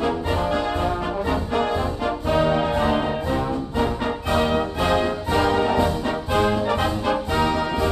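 Background brass band music with a steady beat of about two beats a second, trumpets and trombones playing a full-voiced tune.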